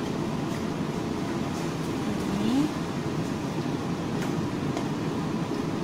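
Steady low rumble of a kitchen range-hood exhaust fan running over the stove, with a few faint light knocks from a wooden spatula stirring tofu in the pan.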